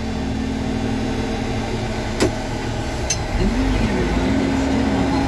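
Vehicle engine running steadily with a low rumble and hum. Two sharp clicks come about two and three seconds in. Just past halfway, the rumble gets louder and the hum starts to waver in pitch.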